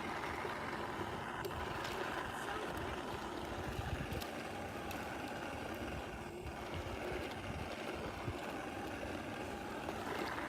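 Radio-controlled monster truck running in an icy puddle, a steady noisy whir with water and ice churning.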